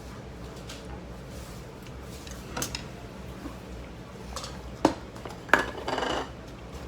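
Eating utensils clinking and knocking against dishes a few times, the sharpest clicks about five seconds in, followed by a brief scrape.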